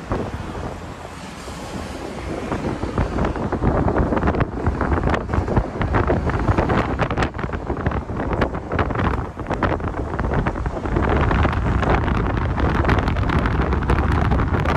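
Wind buffeting the microphone in a moving Scania multi-axle coach, over the low running noise of the bus on the road; it grows louder about three seconds in.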